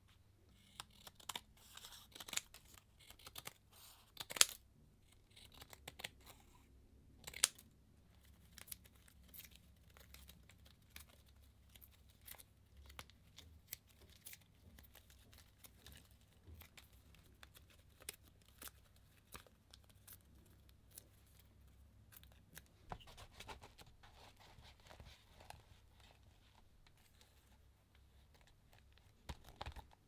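A thin lattice-pattern paper cut-out being handled, peeled and torn, with rustling and scattered sharp clicks and taps. The loudest taps come in the first eight seconds.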